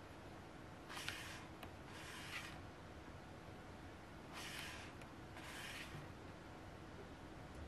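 Pages of an album photobook being turned by hand: four soft paper swishes, in two pairs, the first pair about a second in and the second midway through.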